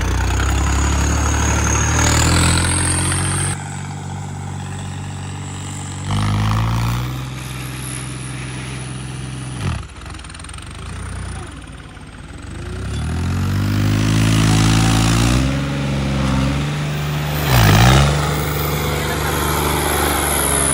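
Diesel tractor engines working hard under load, their pitch rising and falling as they rev. The sound changes abruptly several times, at about 3.5, 6 and 10 seconds in.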